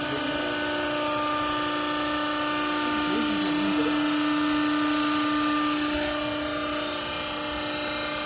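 Hydraulic clothes baler's power unit, its electric motor and pump running with a steady whine that eases a little about six or seven seconds in.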